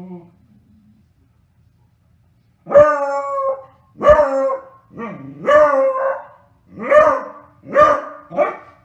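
Beagle barking at a noisy toy: a run of loud, pitched barks, about one a second, starting about three seconds in after a faint one at the start.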